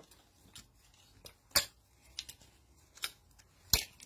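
Handling noise from folded T-shirts being lifted off a stack: a handful of sharp clicks and rustles at irregular intervals, the loudest about a second and a half in and again near the end.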